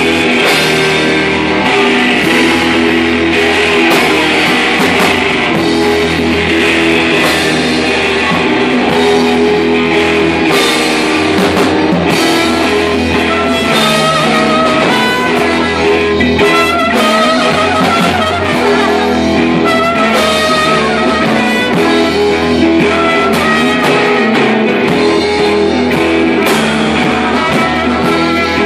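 Live rock band playing loudly: amplified guitar over a drum kit with frequent cymbal hits, and a trumpet joining in with a wavering line over the second half.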